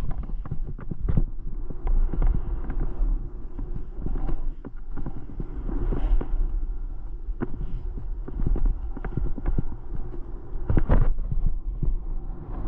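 Skis hissing and scraping through soft snow on a downhill run, with irregular sharp knocks and a steady low rumble of wind on the microphone; the loudest knocks come near the end.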